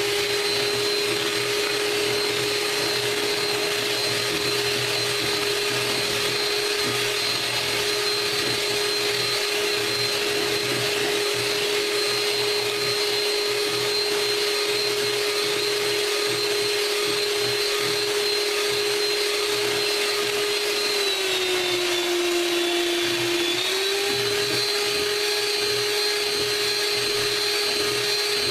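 Electric hand mixer running steadily, its beaters whisking egg yolks and sugar in a plastic bowl until the mixture turns pale. The motor's whine drops in pitch for about two seconds roughly three-quarters of the way through, then comes back up.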